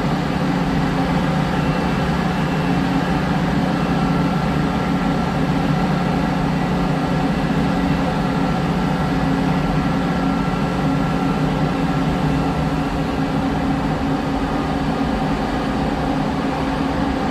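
Liebherr R 9350 mining excavator's diesel engine running with a steady, heavy drone, with a faint thin whine over it for several seconds in the middle.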